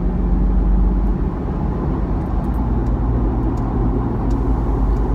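Cabin noise of a 2017 Toyota 4Runner TRD Off-Road on aggressive mud-terrain tyres, accelerating toward highway speed. It is a steady low tyre drone and road rumble, with the engine running under it.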